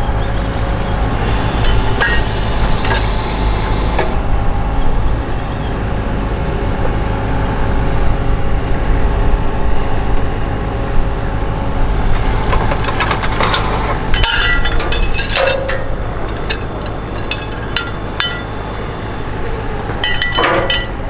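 An engine hums steadily while metal clinks and knocks come and go, most of them around the middle and near the end.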